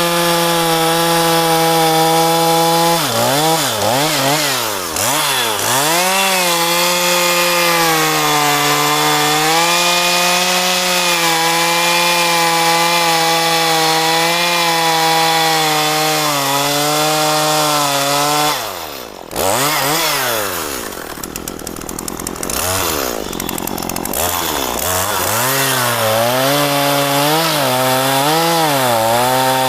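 Two-stroke chainsaw running at high revs while cutting mahogany wood, its pitch dipping and wavering as the chain loads in the cut. About two-thirds of the way through the engine note drops suddenly and falls off for a few seconds, then revs back up into the cut.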